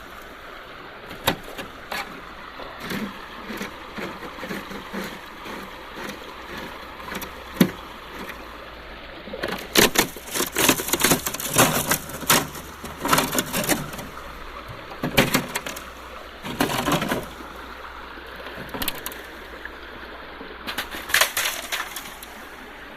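Stones and gravel clattering and scraping in several bursts, busiest around the middle, as recovered river material is sorted through for gold, over the steady sound of a river running.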